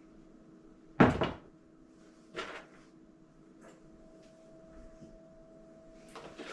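Two knocks from objects being handled: a loud one about a second in and a softer one about a second and a half later, then light clicks near the end, over a faint steady hum.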